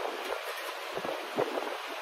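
Sheet steel panel edge being bent into a tuck with a tuck fork: a few soft low thumps over a steady shop background hiss.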